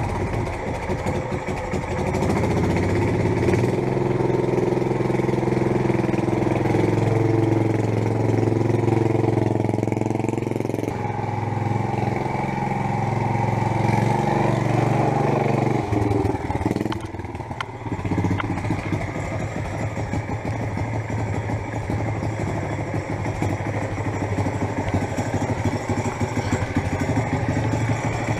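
Predator 212 single-cylinder four-stroke engine of a homemade mini chopper running as the bike is ridden. The engine note rises and falls as it speeds up and slows, drops about sixteen seconds in, then runs more steadily.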